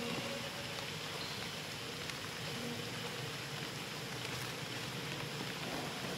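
Steady light rain falling, an even hiss that holds at the same level throughout.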